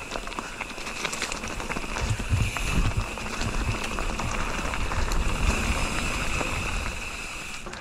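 Mountain bike riding over a rough dirt trail: tyres crackling over the ground and the bike rattling with many sharp clicks over bumps, over a steady high buzz. Wind starts buffeting the microphone about two seconds in.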